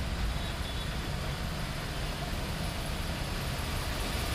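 Cars driving through deep floodwater on a road: engines running under a steady rush of water and low rumble.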